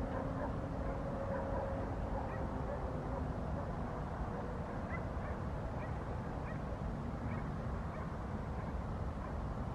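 Steady outdoor background rumble with a faint engine hum that fades away in the first few seconds. Scattered short, high yelps from an animal come through it.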